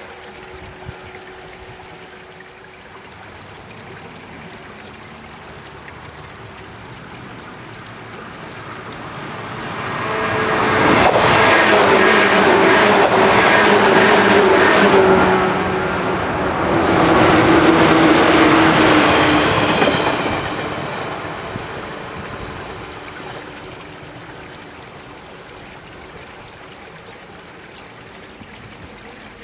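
Electric multiple-unit local train passing close by on electrified double track. It swells over a couple of seconds, runs loud for about ten seconds with rhythmic wheel clatter and a humming tone, dips briefly partway through, then fades away. Trickling water from an irrigation channel underneath before and after.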